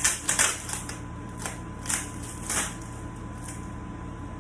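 Tape being pressed and rubbed down by hand along the table's edge. A quick run of crinkling rubs comes in the first half second, then three more single strokes over the next two seconds, over a steady low hum.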